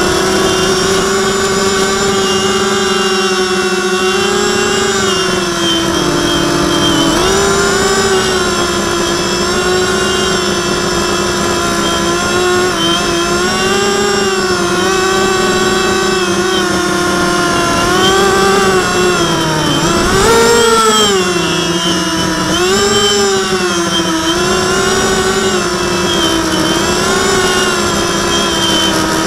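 FPV drone's electric motors and propellers whining steadily, the pitch rising and falling as the throttle changes: a dip about six seconds in and several surges later, the strongest about two-thirds of the way through.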